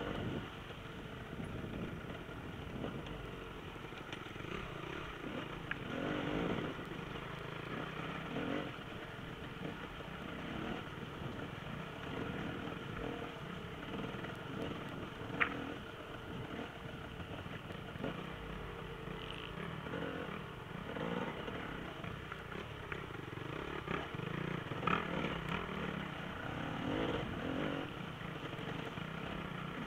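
Enduro motorcycle engines revving up and down over and over, with a sharp click about halfway through.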